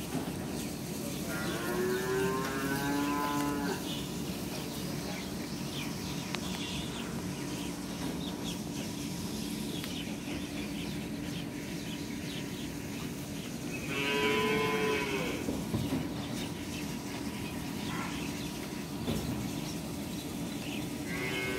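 Cattle mooing: two long calls about twelve seconds apart, the first falling in pitch, and the start of a third near the end, over a steady low hum.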